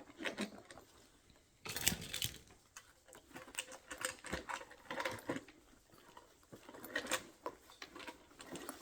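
Stubby screwdrivers being handled and slotted into the pockets of a tool bag: irregular light clicks, taps and rustling, with a louder rattle about two seconds in.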